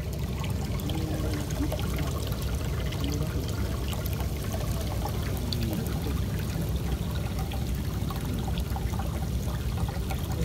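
Water pouring and bubbling into a fish holding tank: a steady splashing rush with many small pops.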